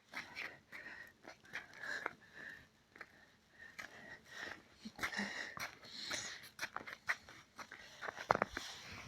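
A dog sniffing and breathing hard, with irregular short clicks and scuffs.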